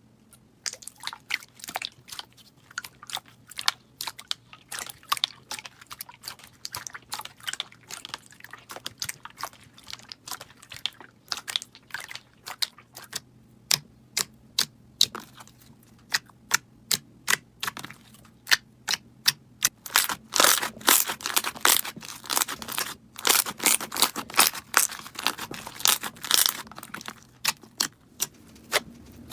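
Slime being squeezed and pressed by hand, giving a rapid run of crisp clicks and crackles that grows denser and louder about two-thirds of the way through.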